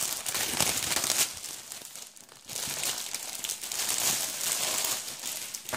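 Clear plastic bag crinkling as it is handled and pulled open and its contents slid out, with a short lull about two seconds in.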